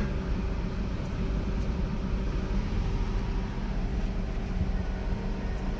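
Toyota Corolla Altis Grande's 1.8-litre four-cylinder engine idling steadily but misfiring with its number 2 cylinder cut off for a cylinder-balance test. The miss shows that cylinder, its clogged fuel injector now cleaned, is firing again.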